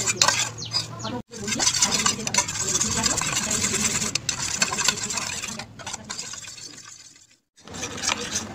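A steel spoon beating dalgona coffee mixture in a stainless steel bowl, with rapid, continuous clinking and scraping of metal on metal and a wet stirring swish. The sound cuts out briefly about a second in, fades to silence near the end, then picks up again as the mixture turns frothy.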